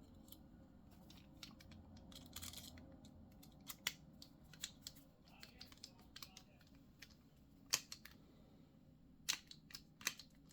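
Faint, scattered sharp clicks and light scraping as a small Torx driver bit turns tiny screws into a folding knife's handle, snugging them in gently.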